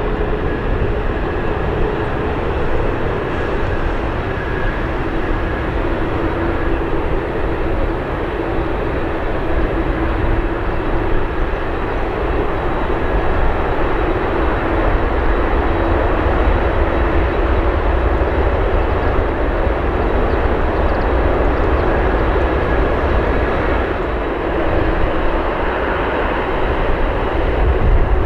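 Jet airliner engines running: a loud, steady rumble with a steady tone held over it.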